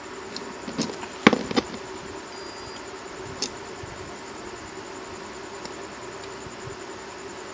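Steady electrical buzzing hum from the electronics repair bench, with a few sharp clicks of tools against the phone board about a second in and again near three and a half seconds, and a brief faint high beep between them.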